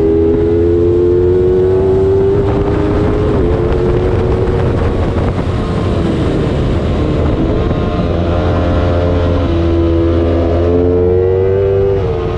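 300-class race motorcycle engine running hard at high revs through gear changes: its pitch steps down a few times and climbs again near the end, over a steady rushing noise.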